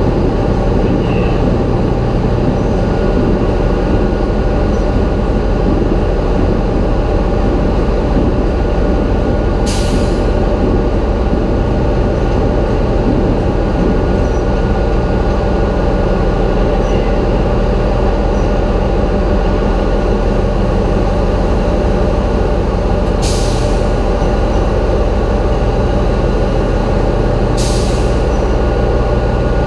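Steady, loud running noise of a Sulzer 7RTA84T-D low-speed two-stroke marine diesel main engine, a deep rumble with steady tones. Three short hisses break through: once about a third of the way in and twice near the end.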